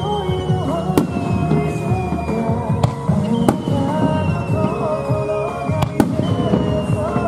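Aerial firework shells bursting, with five sharp bangs at uneven gaps of one to three seconds, two of them close together near the end. A long whistle sounds three times, slowly falling in pitch, over a steady low rumble.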